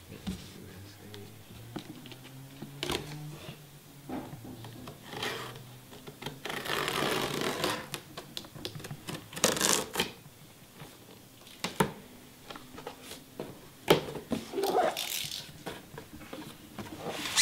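Cardboard box being opened by hand: packing tape peeled off the lid in a long rip after about six seconds, then the flaps pulled open, with scattered rustles, scrapes and sharp cardboard knocks.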